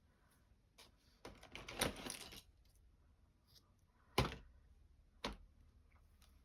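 Rustling and scraping of hands handling yarn and sewing things on a table, then two sharp clicks about a second apart.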